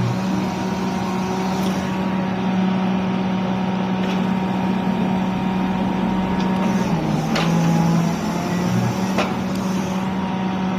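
Excavator running steadily, a constant machine hum with a steady whine above it; the pitch dips briefly about seven seconds in, and a couple of sharp clicks are heard near the end.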